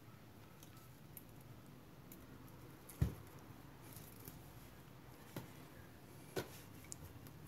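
Faint handling noise as polypropylene string is threaded and pulled through the copper windings of a small motor stator to lace them. There is a soft knock about three seconds in and two lighter ones later.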